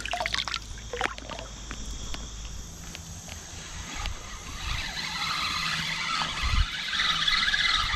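A spinning reel being cranked to retrieve a cast lure. Through the second half it makes a whirring that rises and falls in regular pulses with the turns of the handle.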